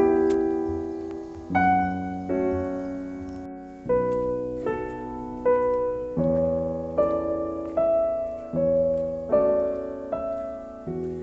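Slow, gentle piano music: sustained chords struck about once a second, each fading before the next.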